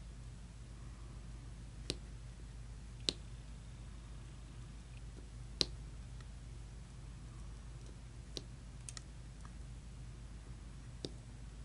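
Scattered light clicks and taps, about six at irregular intervals, with the sharpest a little before the middle, over a steady low hum.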